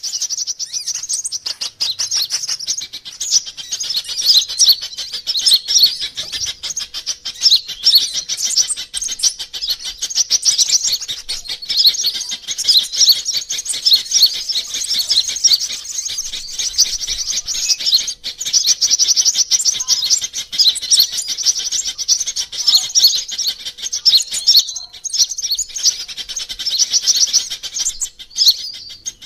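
Sunbirds calling: dense, rapid, high-pitched chirping and trilling that runs almost without pause, with short breaks about 18 and 25 seconds in. It is a lure-call track (suara pikat) mixing the calls of several sunbird species, made to draw sunbirds in.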